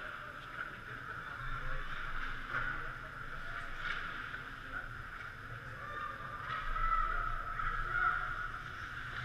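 Ice hockey play on a rink: skate blades scraping across the ice, a few sharp clacks of sticks and puck, and shouts from players.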